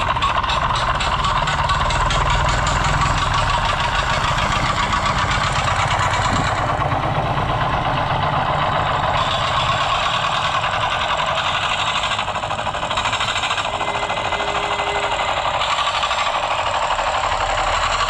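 Small engine of a working miniature cement concrete mixer running steadily with a fast, even buzz.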